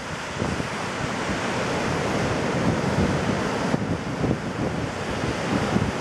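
Ocean surf breaking and washing up a sandy beach, a steady sound of waves, with wind buffeting the microphone.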